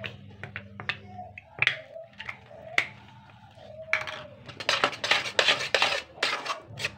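A spatula scraping and clicking against a stainless steel pan as a thick, cooked-down guava paste is stirred, with scattered clicks at first and then a quick run of scraping strokes from about four and a half to six seconds in.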